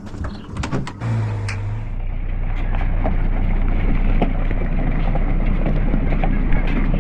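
A motor starts about a second in and runs steadily, growing louder over the next couple of seconds and then holding.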